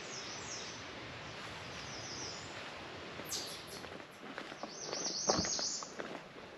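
Songbirds calling in woodland: short high chirps, a high falling whistle about three seconds in, and a rapid high trill in the second half. Footsteps on a dirt trail start about halfway through, with one heavier thump.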